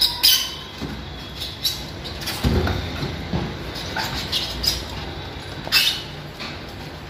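Handling noise at a freezer's evaporator coil: scattered light clicks and knocks as a hand moves over the finned coil, with a low rumble about two and a half seconds in lasting about a second.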